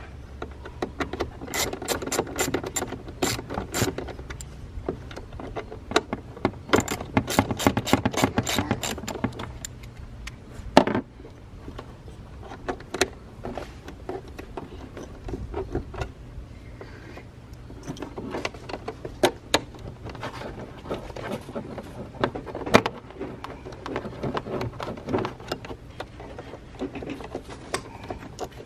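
A small ratcheting wrench with a Torx bit clicking in quick bursts as the screws holding a mass air flow sensor are backed out. Metal tool handling rattles come between the bursts, with one sharper knock about eleven seconds in.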